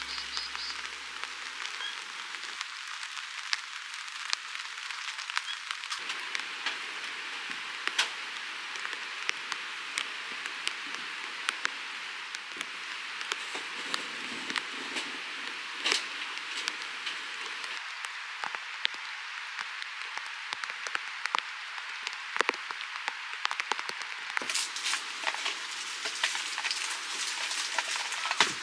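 Rain falling on the fabric of a Pomoly Circle6 tipi tent: a steady hiss scattered with many small sharp drop taps.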